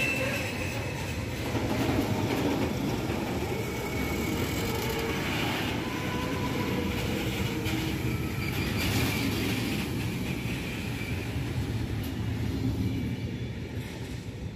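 Freight train of loaded container flat wagons rolling past: a steady rumble of wheels on rail, with faint thin squealing tones from the wheels. The noise eases slightly near the end as the last wagons go by.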